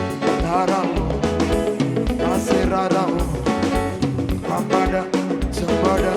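Live band playing African popular music, with drums and bass keeping a steady beat under a melodic lead line.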